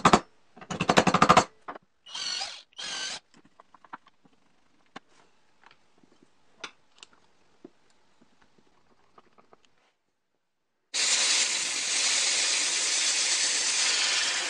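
Quick wooden rattles and knocks, then faint scattered clicks. About eleven seconds in, a compressed-air blow gun starts a steady hiss as it blows air into a wooden model air engine and spins the engine's flywheel.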